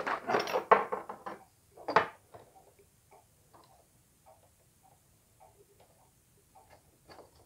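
Paper rustling and handling of a thin laser-cut steel locomotive frame plate, with one sharp clack about two seconds in, then a string of faint light ticks about every half second as the points of a pair of dividers are set against the steel.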